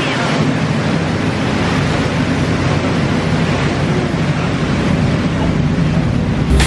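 Tour boat under way: its engine runs with a steady low drone under a constant rush of water and wind.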